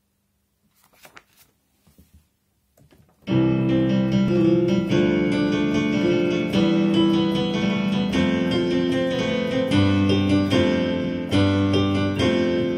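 A few faint rustles, then about three seconds in an electronic keyboard on a piano voice starts playing a film-music tune with both hands, sustained low notes under a melody.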